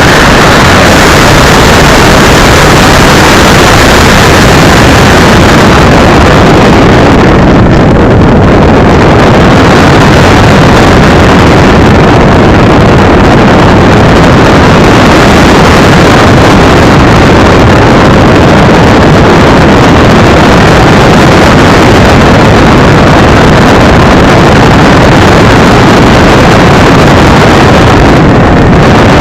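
Wind rushing over a small keychain camera's microphone on an RC Cessna 182 model plane in flight, mixed with its 850 kv electric motor and 11x9 propeller: a loud, dense, even rush with no clear motor pitch, overloading the tiny microphone. The hiss dulls briefly about eight seconds in and again near the end.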